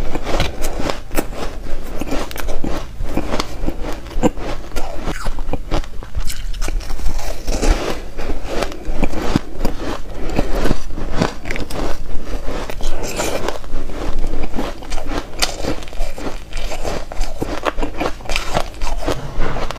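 Dry, crispy ice being bitten and chewed close to a lapel microphone: a dense, irregular run of crunches and crackles.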